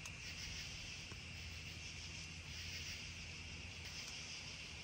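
Night insects, crickets among them, chirping in a faint, steady high-pitched chorus, over a low steady hum.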